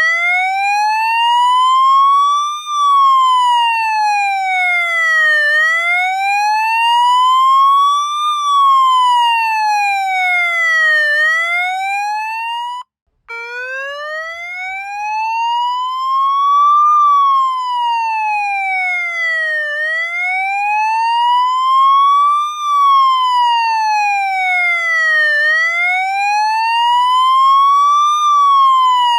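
Police siren wailing in slow, even sweeps, its pitch rising and falling about every five and a half seconds. About thirteen seconds in it cuts out for half a second, then the wail starts again from low pitch.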